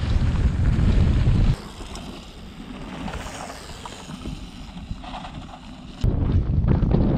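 Wind buffeting the microphone of a camera riding on a mountain bike along a trail, a heavy low rumble. About a second and a half in it drops suddenly to a much quieter stretch of light wind, and the heavy buffeting returns near the end.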